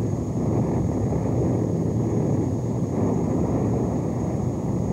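Flamethrowers firing on a newsreel soundtrack: a steady rushing roar with no separate shots or blasts, heard through old tape hiss.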